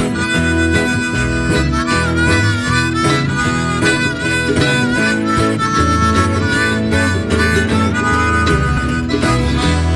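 Harmonica playing an instrumental lead with bending notes, over strummed acoustic guitar and mandolin in a country-blues string-band tune.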